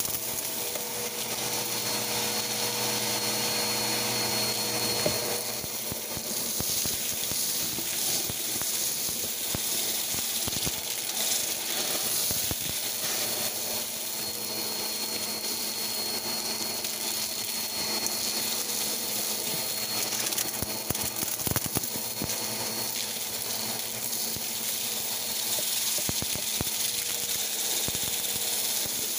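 Bagless upright vacuum cleaner running steadily while its hose sucks up gritty debris, with scattered clicks and ticks of grit rattling up through the hose.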